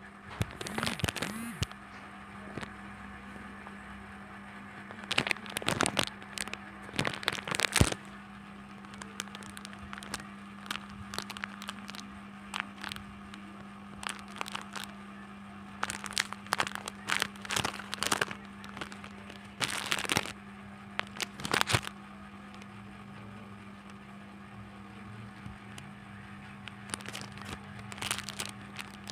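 Plastic mailer bag and clear plastic wrappers crinkling as they are handled and cut open with scissors, in several bursts of rustling. A steady low hum runs underneath.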